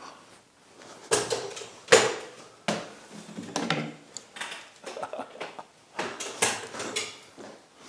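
Irregular knocks and clatters, about half a dozen, the loudest two about one and two seconds in: a folding metal step stool being climbed and a heavy framed picture being shifted on its wall hook.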